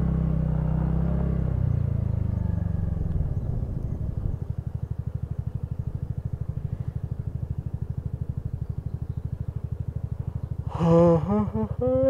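TVS Ntorq 125 scooter's single-cylinder engine running, then winding down between about two and four seconds in as it slows, and settling into an even, pulsing idle. A man's voice starts near the end.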